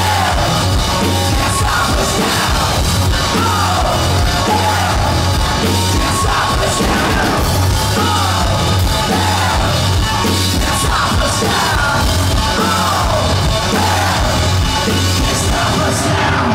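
Live hard rock band playing at full volume: distorted electric guitar, bass guitar and drum kit under a shouted lead vocal.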